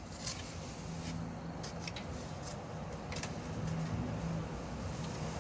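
A few light clicks and taps from parts being handled, spread over the first few seconds, over a steady background hiss with a faint low hum.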